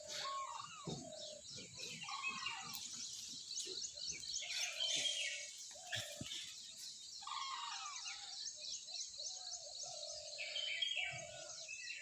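Birds chirping and calling, several at once: rapid high chirps run throughout, with lower, repeated calls coming and going.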